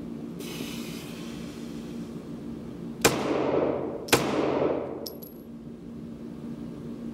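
Two shots from a Kahr PM9 9mm pistol about a second apart, each echoing with a long decay, over a steady low hum.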